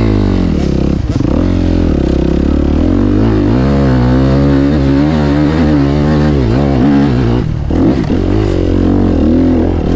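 Suzuki RM-Z250 single-cylinder four-stroke motocross engine under hard throttle, its revs rising and falling repeatedly while climbing a steep dirt hill. The revs and level drop briefly about seven and a half seconds in, then pick up again.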